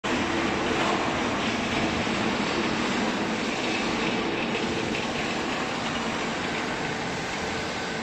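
Steady mechanical noise of factory machinery running: an even hum with a rushing hiss and no distinct knocks or strokes.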